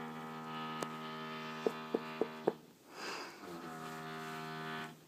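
A loud, low droning tone with a buzzy, horn-like quality, sounding in long blasts of two to three seconds with short breaks between them. Several sharp clicks cut through the first blast.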